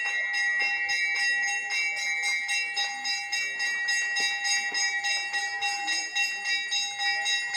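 Temple bell rung rapidly and steadily during the aarti, about three to four strikes a second, its ringing tone held on without a break.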